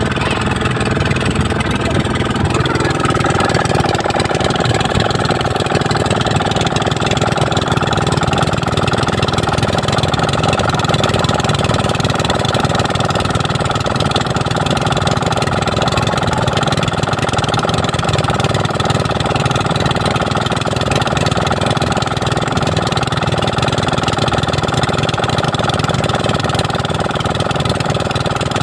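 A boat engine running steadily at an even speed, with a constant hum.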